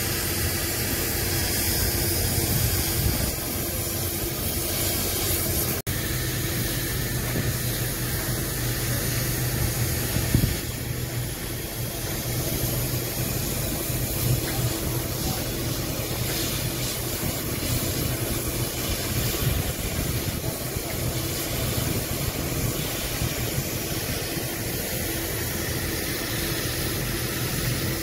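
Steady machinery hum, an engine running, under a constant hiss. There is one brief dropout about six seconds in and a short louder knock about ten seconds in.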